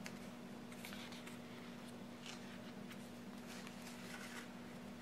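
Faint paper rustling and handling as a sticker is peeled from a sticker-book sheet and pressed onto a planner page, in a few short scrapes over a steady low hum.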